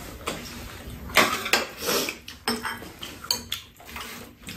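Metal spoons and chopsticks clinking and scraping against ceramic bowls during a meal: a few separate irregular clicks.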